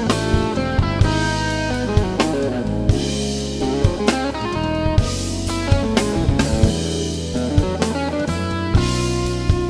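Fusion band playing an instrumental live: electric guitar over bass guitar, keyboards and drum kit, with held guitar notes and regular drum hits.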